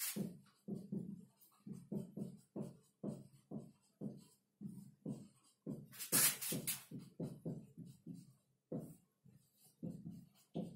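Felt-tip marker writing on a whiteboard: a quick run of short strokes, two or three a second, with a louder scratchy stretch about six seconds in.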